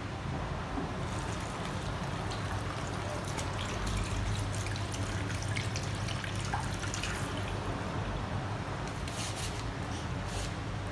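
Water running from a tap over hands being washed, with small splashes and drips that begin about a second in.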